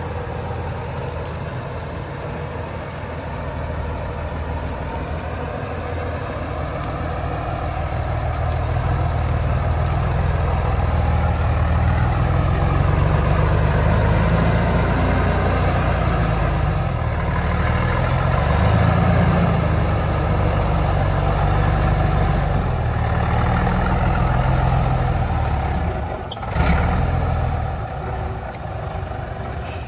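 Heavy truck engine running with a deep rumble that grows louder over the first dozen seconds and then holds, with a short sharp burst of noise near the end.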